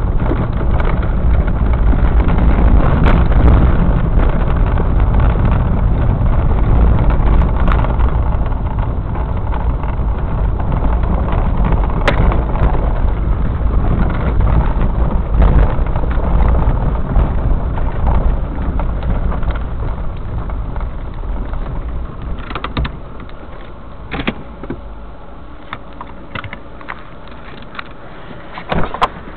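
Car driving on a gravel dirt track, heard from inside the cabin: a steady low rumble of tyres and engine. About 22 seconds in it quietens as the car slows, and a few knocks and clicks sound near the end.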